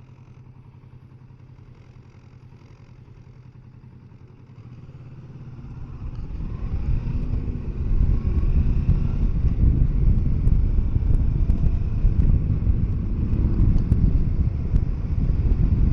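Kawasaki Versys 650 parallel-twin engine running quietly at low speed. About five seconds in it accelerates, its pitch rising, and a loud low rush of wind and road noise builds over the helmet microphone.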